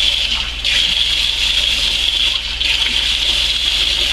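Kitchen sink faucet running a stream of hot water into a plastic spray bottle, filling it. The steady hiss dips briefly twice.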